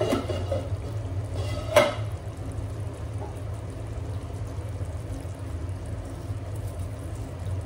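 Curry gravy simmering in a pot on a gas stove over a steady low hum, with a metal spoon knocking against the pot twice in the first two seconds.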